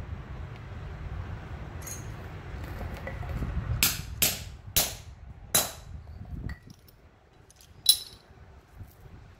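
Hammer striking the punch of a hammer-type lug crimper four times in quick succession, crimping a copper lug onto a battery cable. A single sharp metal clink follows a couple of seconds later.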